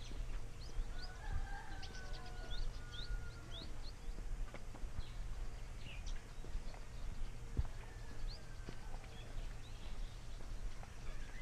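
Footsteps on a dirt path, with birds calling around: quick rising chirps, thickest in the first few seconds, and a few longer whistled notes.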